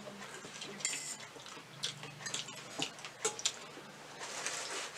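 Eating sounds: metal forks clicking and scraping on steel plates, with noodles being slurped and chewed between the clicks.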